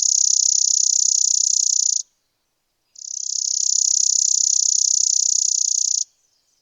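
Chipping sparrow singing: two long, rapid, dry trills of chips on one high pitch, each about three seconds, with a pause of about a second between them.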